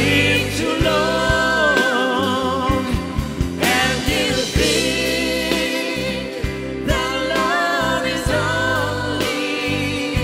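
Live band playing a slow ballad: a woman singing long, wavering notes over electric bass, keyboards and drums.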